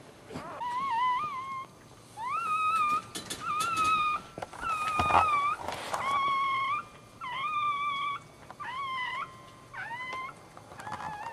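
Newborn dachshund puppy crying: a string of about nine short, high squeals, each under a second long, many sliding up at the start. A few soft knocks come in the middle.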